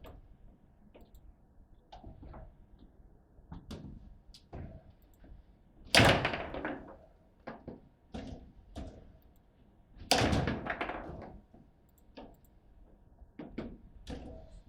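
Table football in play: the ball and rods knocking and clacking on the table in scattered sharp clicks, with two much louder hard strikes, about six and ten seconds in, that ring on briefly.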